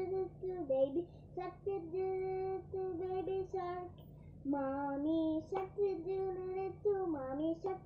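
A young girl singing unaccompanied, holding long steady notes in short phrases with brief pauses between them. A low steady hum runs underneath.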